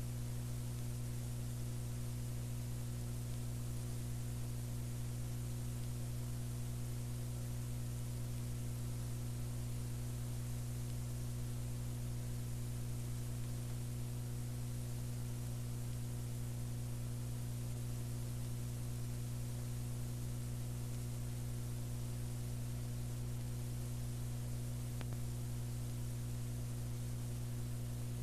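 Steady electrical mains hum with a low buzz and constant hiss, unchanging throughout, with no other sound.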